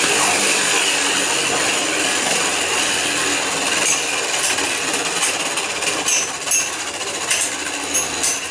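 Spinner M.A.D spinning tops whirring at high speed, the whir easing off a little in the second half as they slow. From about four seconds in, sharp clinks as the tops collide.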